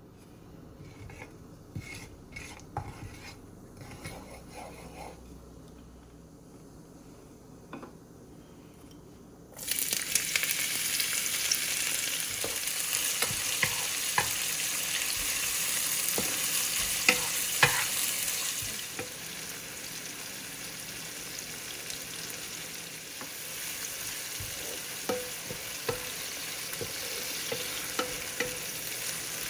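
A few light clicks and taps, then about ten seconds in, food goes into hot oil and sizzles loudly, with knocks of a utensil stirring it in the pan. The sizzle settles lower a little past halfway.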